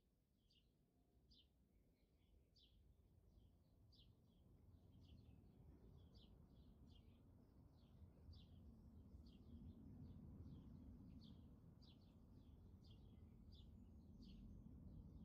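Near silence: a small bird chirping faintly and repeatedly, about two short chirps a second, over a faint low background rumble.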